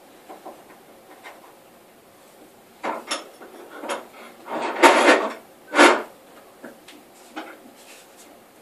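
An oak board being shifted against the workbench and set in a wooden-jawed bench vise: a few short scrapes and knocks, the longest and loudest about five seconds in, with a sharp one just after and small clicks on either side.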